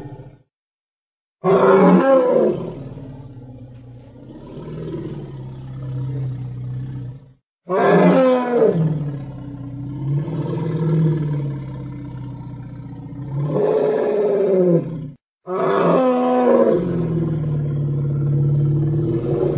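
A sound-effect woolly mammoth call, heard three times. Each call opens with a loud cry that drops in pitch, then trails into a long, low, pitched rumble that swells and fades, and each cuts off abruptly before the next.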